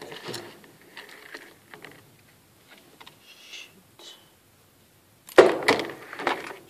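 Small knocks and handling rustles as a disassembled smartphone is lifted over a bowl, then a loud clatter a little over five seconds in as it falls back into the bowl.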